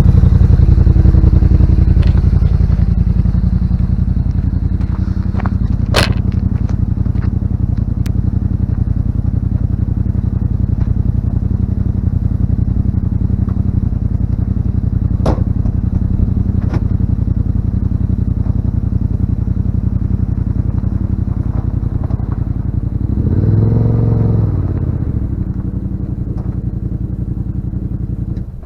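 Yamaha RMAX4's 999 cc parallel-twin engine running at low speed while crawling over rocks, with a few sharp knocks from the chassis or tires on rock. About 23 seconds in the engine revs up and back down.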